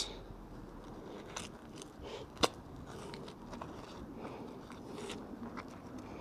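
Rubber-gloved hands pulling mud-caked metal scrap off a fishing magnet: gritty scraping and crackling, with one sharp click about two and a half seconds in.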